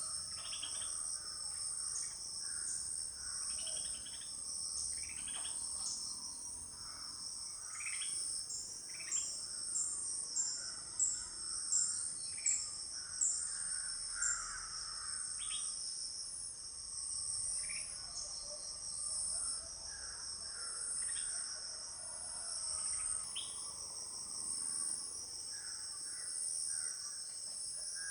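Steady high-pitched insect chorus, with short bird calls scattered over it. A run of sharper, louder chirps comes about once a second around the middle.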